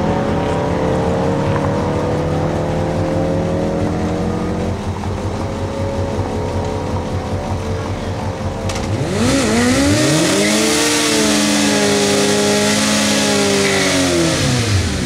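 Two Suzuki Hayabusa inline-four sportbikes idling, then from about nine seconds in doing burnouts: engines revved high and held while the rear tyres spin with a loud hiss, revs dropping near the end.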